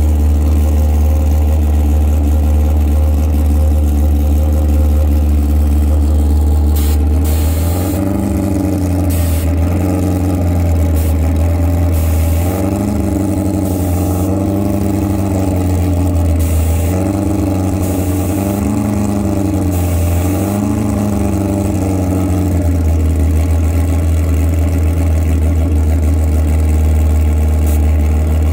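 Motorcycle engine running over a heavy steady low rumble; from about eight seconds in its pitch rises and falls in a series of slow revs every couple of seconds, settling back to a steady note about twenty-two seconds in.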